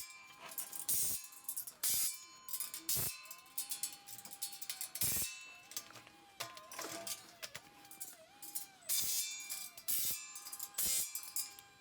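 Background music with a steady drum beat, about one hit a second, under a held, wavering melody line.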